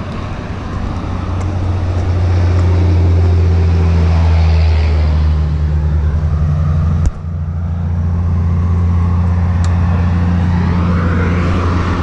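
A steady low mechanical hum, like an engine or machinery running, with road traffic swelling and fading behind it, and a sharp click about seven seconds in.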